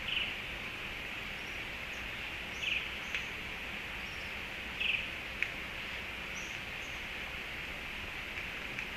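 Steady high-pitched outdoor background hiss, with a few brief chirps and sharp clicks scattered through it.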